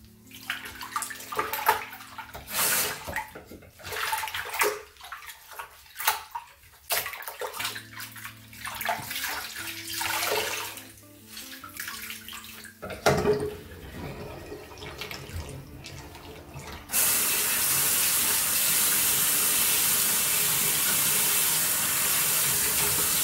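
Cloth wiping over a porcelain bathroom sink in uneven strokes, then the tap running: a thinner stream splashing over a cloth being rinsed and wrung from a little past halfway, and from about three-quarters of the way in a full, steady stream pouring into the drain.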